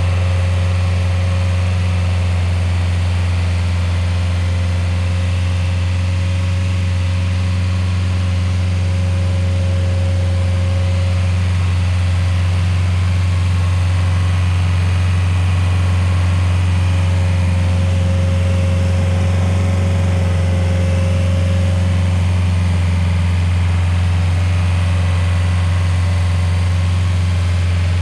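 Rayco RG50 stump grinder's engine running steadily at an even pitch, with a faint higher whine that comes and goes twice.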